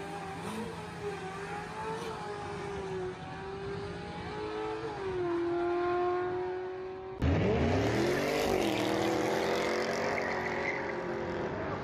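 Drag-racing car engine running hard down the strip, its pitch climbing and dropping as it shifts. About seven seconds in it cuts abruptly to a louder car engine revving steeply over a dense haze of noise.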